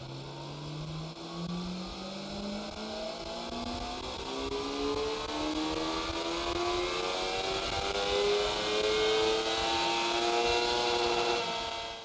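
Suzuki GSX-R750's inline-four engine on a dyno power run, its note rising steadily from low revs to high revs as the rear wheel drives the roller.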